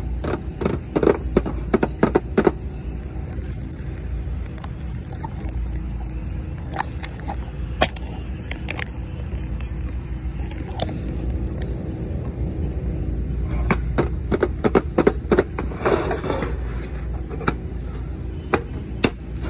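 Hands handling and opening a floral-patterned box on a wooden table: bursts of taps, clicks and scrapes, bunched in the first few seconds and again about two-thirds of the way through, over a steady low rumble.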